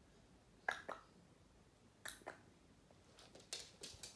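Faint, sharp clicks, a few seconds apart at first, then a quick run of light taps near the end as a West Highland White Terrier puppy gets off its mat and moves across the laminate floor, its claws clicking on the boards.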